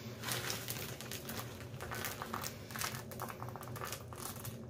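Plastic bag of chocolate chips crinkling in the hand as the chips are shaken and sprinkled out, an irregular rapid crackle.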